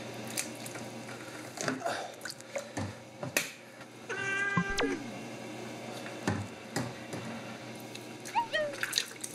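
A hairless cat meowing in distress while being bathed: one long drawn-out meow about four seconds in that falls in pitch at its end, then short falling meows near the end, with a few small knocks in between.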